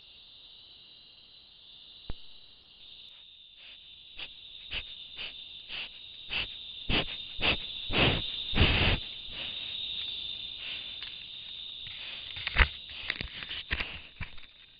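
A black (melanistic) jaguar sniffing and brushing against the camera trap, close on the microphone: a run of short, sharp snuffs and bumps that starts a few seconds in and is loudest about two thirds of the way through. Behind it, night insects trill steadily and high-pitched.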